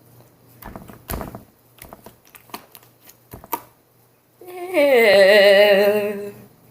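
Small sticky clicks and squelches of slime being worked in the hands. About four and a half seconds in, a girl sings one loud, long note for nearly two seconds, its pitch wavering and sinking slightly.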